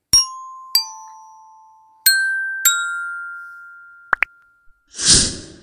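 Logo intro jingle: four bell-like chime notes struck in two pairs and left to ring out, then two quick rising blips and a short noisy rush near the end.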